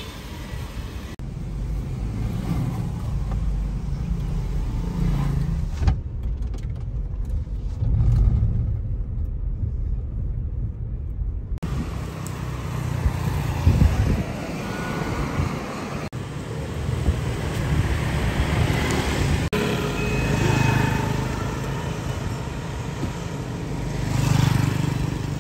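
Car engine and road noise, a steady low rumble, with street traffic.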